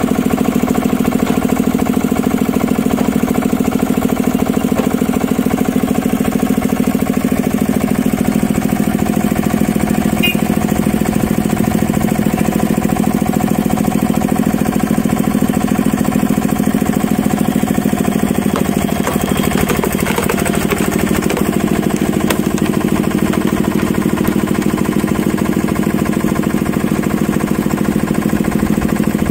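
Engine of a hydraulic log splitter running steadily, with a brief shift in its sound about two-thirds of the way through.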